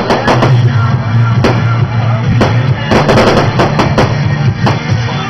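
Fireworks display: a rapid, irregular series of sharp bangs and crackles from bursting shells, over music playing.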